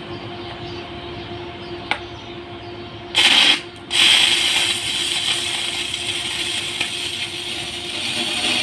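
Stick-welding (SMAW) arc on a steel pipe elbow. After a steady hum and a single click, the arc strikes about three seconds in and crackles for half a second, then breaks off. It restrikes a moment later and crackles and hisses steadily.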